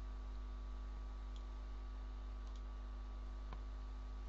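Steady mains hum in the recording, with a few faint mouse clicks.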